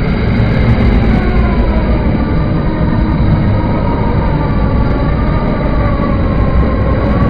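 Steady low rumble of a motor vehicle, with a faint wavering tone riding over it.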